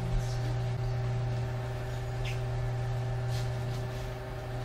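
Steady low machine hum with a few fainter higher tones over it, unchanging throughout, and a couple of faint short hisses.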